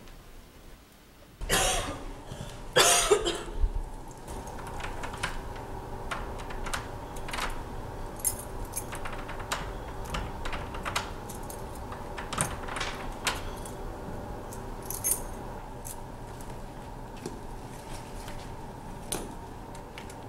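A bunch of keys jangling, and a key rattling and clicking in a door lock that will not open, in many small irregular clicks. The key does not fit because the locks have been changed. Two louder rattles come near the start, over a faint steady hum.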